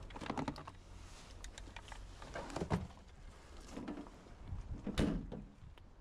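Tools and test leads clattering in a toolbox as they are rummaged out by hand: scattered light clicks and rattles, with two louder knocks, one near the middle and one about five seconds in.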